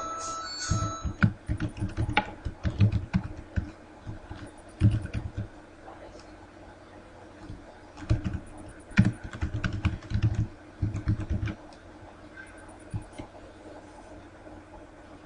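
Typing on a computer keyboard: bursts of rapid key clicks that stop about three-quarters of the way through, followed by a few isolated clicks.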